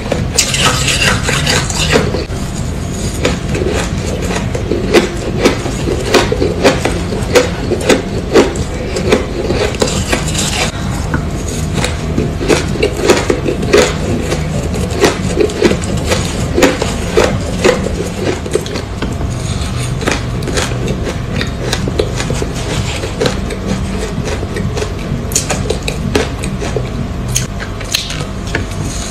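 Chewing and crunching shaved ice close to the microphone: a rapid, irregular run of crisp crunches, several a second, with the spoon scraping through the ice in the bowl.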